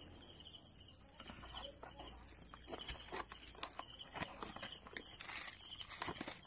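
A cardboard box being handled and opened over bubble wrap: scattered light crinkles, scrapes and taps. Under it runs a steady high chirring of crickets.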